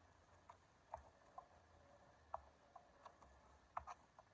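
Tennis ball hit by a racket and bouncing off pavement and a brick wall in a backhand rally: a string of faint, irregular pops, about ten in four seconds.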